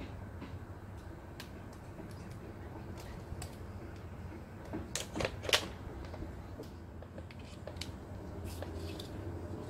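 Light plastic clicks and taps from a table lamp's power cord, inline switch and plastic socket holder being handled, with a quick cluster of sharper clicks about five seconds in, over a faint steady low hum.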